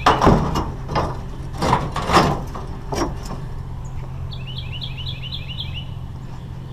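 Rusty steel poles clanking against scrap metal as they are loaded into a pickup truck bed, several loud metal hits in the first three seconds, over a steady low hum. Around the middle a bird sings a quick trill of about eight chirps.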